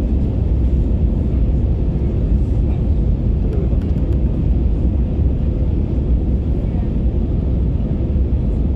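Steady cabin noise inside an Airbus A321neo airliner on approach: a deep, even rumble of the engines and airflow, with a thin steady hum underneath.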